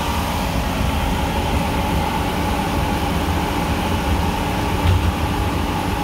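Small transit bus driving, heard from inside the cabin: a steady low engine and road rumble under a constant hum, with a brief low thump about five seconds in.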